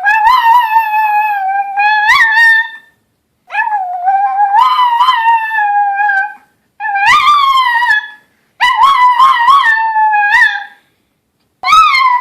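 Chihuahua howling: four long, high, wavering howls with short pauses between them, and a fifth beginning near the end. The pitch jumps up briefly now and then within each howl.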